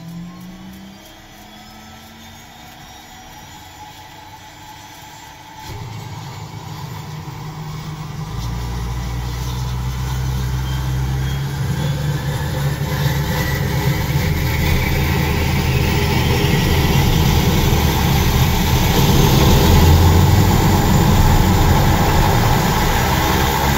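Aircraft turbine engine spooling up: a whine that climbs steadily in pitch over a deep rumble. It jumps in loudness about six seconds in and keeps growing louder after that.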